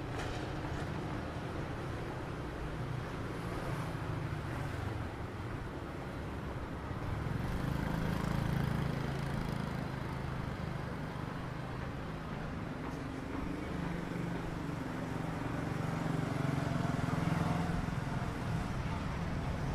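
Street traffic passing steadily, with two louder swells as vehicles go by closer, about eight and seventeen seconds in.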